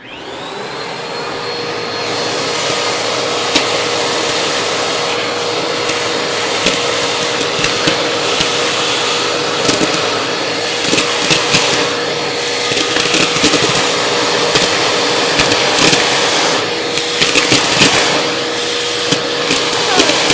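Eureka Maxima vacuum switched on, its motor whining up to speed over about two seconds, then running steadily through the crevice tool on the hose. Plastic buttons rattle and click as they are sucked up off the carpet, more often in the second half.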